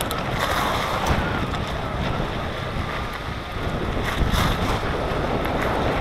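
Wind noise buffeting the microphone while a mountain bike rides over shingle and sand, its tyres crunching over the stones with a few sharper knocks, around a second in and again after four seconds.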